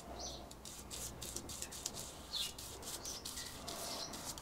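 Soft swishes and fine bristle ticks of a paintbrush laying enamel paint onto a steam engine crankcase, with a few short high chirps over a faint low hum.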